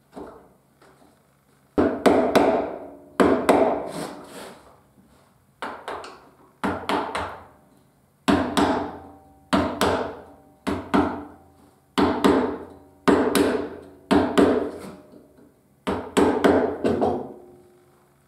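Carving gouge being driven into cherry wood by strikes on its handle: a series of sharp wooden knocks, each trailing off as the blade cuts, in quick groups of two to four with short pauses between.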